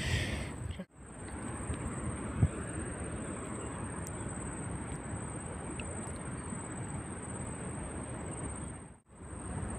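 Steady low background hiss of outdoor ambience with a faint, steady high-pitched tone over it, cut off briefly about a second in and again near the end.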